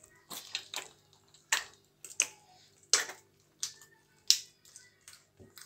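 Soft, sticky bread dough being kneaded by hand in a glazed clay bowl: a run of short, wet slaps and squelches, about one every half second to a second, as the fist presses and folds the dough.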